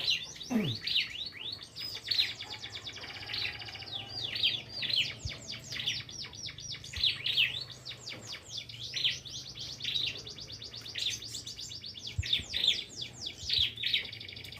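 A prinia (prenjak) singing busily: quick runs of sharp, high chirps swept up and down, broken by fast buzzy trills, one phrase after another with short gaps.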